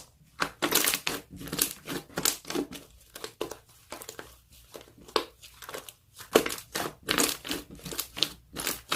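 Slime being squeezed and worked by hand, giving irregular crinkling, crackling pops a few times a second.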